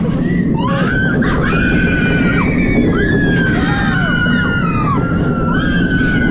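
Wind buffeting the microphone at speed on a roller coaster ride, with riders screaming in long, overlapping held cries that drop in pitch as each one ends.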